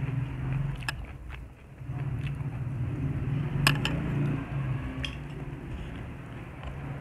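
Close-miked eating sounds: chewing and mouth noises, with a low hum through much of the first half that breaks off briefly about a second and a half in. A few sharp clicks, the loudest near the middle, come as hands pick food and rice from a shared plate.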